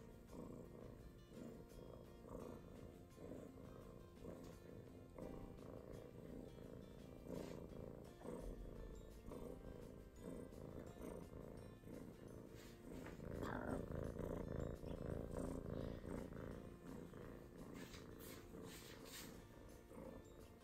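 A grey Scottish kitten purring steadily while held close. The purring grows louder for a few seconds about two-thirds of the way through.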